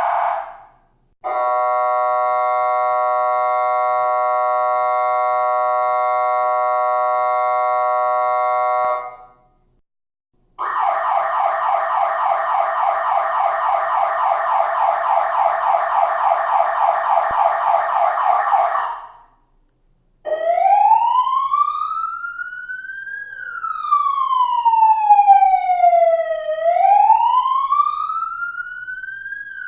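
12 V electronic siren sounding three of its tones in turn, with short breaks between them: a steady horn-like tone for about eight seconds, then a fast pulsing tone, then a slow wail that rises and falls.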